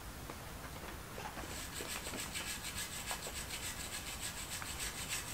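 Hand scrubbing of a metal engine manifold at a workbench, cleaning off old grime: a few faint scattered clicks, then from about a second and a half in a quick, even run of rasping strokes.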